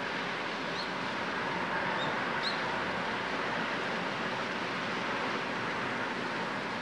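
Steady rushing noise of the Tokai Kisen jetfoil 'Seven Island Niji' and its gas-turbine engines as the boat pulls away from the pier. A few faint high chirps come through about one and two seconds in.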